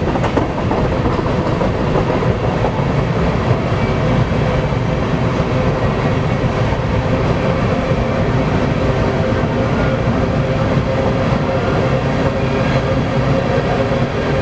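Covered-hopper grain cars of a freight train rolling past at speed on smooth track: a steady rumble of steel wheels on rail, with a faint steady ringing tone.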